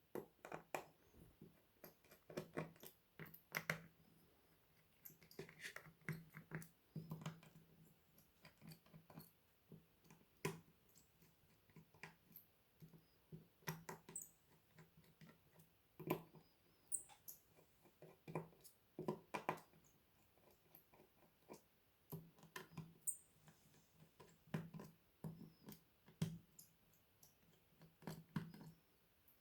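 Faint, irregular small clicks and taps as a precision screwdriver works out the tiny screws holding an Oppo A16 phone's inner frame, with screws and plastic parts knocking now and then.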